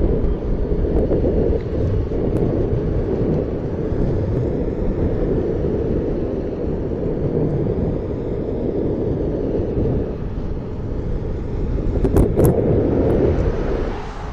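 Wind buffeting the microphone, a steady low rumble while riding an electric unicycle, with a couple of sharp clicks near the end.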